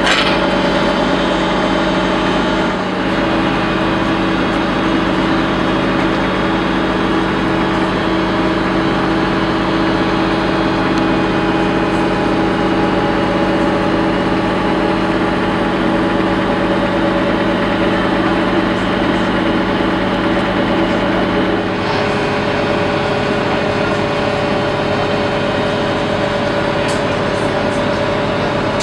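Diesel engine of a Friendship water-taxi boat running steadily, heard from on board, a loud drone with several held tones. About three-quarters of the way through the sound changes abruptly and the lowest hum drops out.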